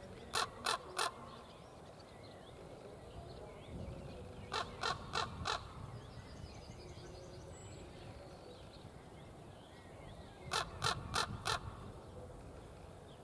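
Common raven calling in three short, quick runs of three to five calls each, with several seconds between the runs.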